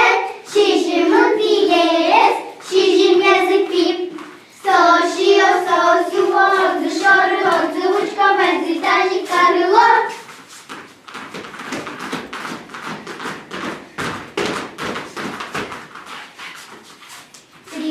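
A group of children singing an Udmurt folk game song in unison, breaking off briefly about four seconds in. About ten seconds in the singing stops and gives way to a fast, irregular clatter of feet and hands as the children move in the dance game.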